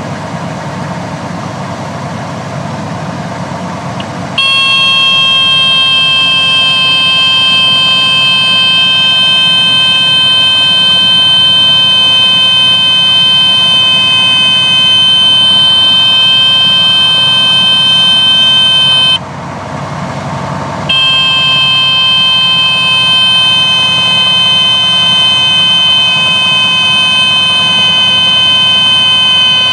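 Cessna 170A stall warning horn sounding a steady high-pitched tone over the engine and cabin noise. It comes on about four seconds in, cuts out briefly about two-thirds of the way through, then resumes, as the wing flies at the edge of the stall.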